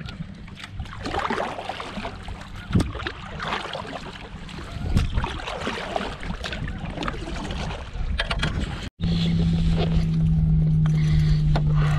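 Water sloshing and wind noise on the microphone around a fishing kayak, irregular and uneven. About nine seconds in it cuts off abruptly and gives way to a steady low hum.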